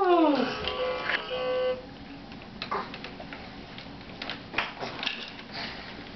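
A voice gliding down in pitch, then a brief steady electronic tone from a plastic baby activity walker toy, followed by scattered taps and knocks of small hands on the toy's plastic panel.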